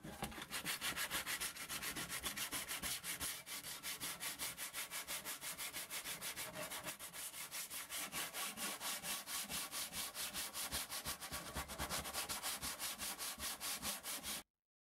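Hand sanding with sandpaper over dried putty on a metal ammunition box: quick, even back-and-forth strokes, about four or five a second, smoothing the filler before paint. The sanding cuts off suddenly near the end.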